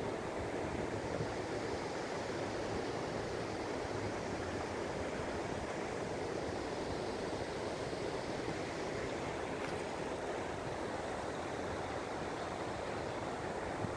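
Steady, even rushing of water at a dam, with no distinct events in it.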